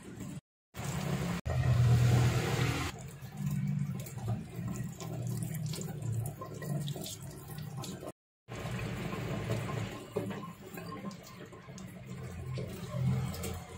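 Tap water running onto okra and yard-long beans held under the stream in a stainless steel sink. It is loudest about two seconds in and cuts out briefly twice.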